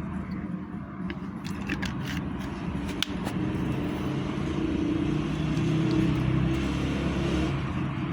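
Road traffic: a motor vehicle's engine rumbling nearby, growing louder past the middle and easing off near the end, with a few light clicks in the first three seconds.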